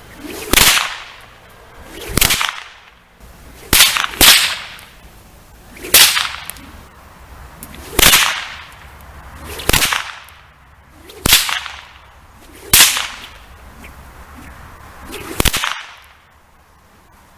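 A whip cracking about ten times, roughly one sharp crack every one and a half to two seconds, with two in quick succession about four seconds in; each crack comes out of a short swish of the lash.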